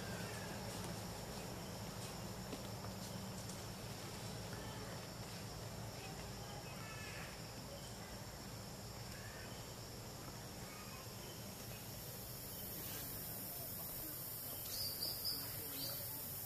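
Outdoor tree-canopy ambience: steady background noise with a faint high insect drone and scattered faint chirps, and a few brief, slightly louder high chirps near the end.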